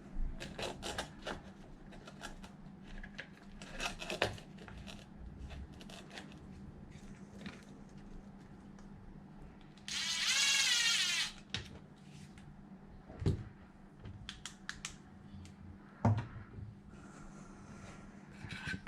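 Hands working on an RC truck's wiring and small parts: scattered light clicks and taps, with one loud rasp lasting just over a second about ten seconds in.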